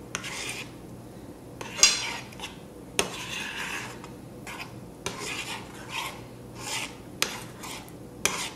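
A spoon stirring thick berry sauce in a frying pan, with irregular scrapes and clinks against the pan; the loudest clink comes about two seconds in.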